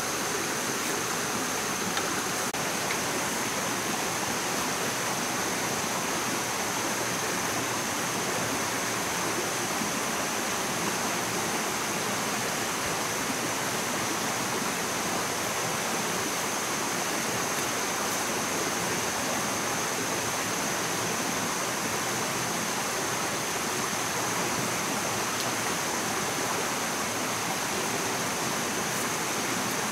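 Steady rushing outdoor hiss with a constant high-pitched insect drone over it.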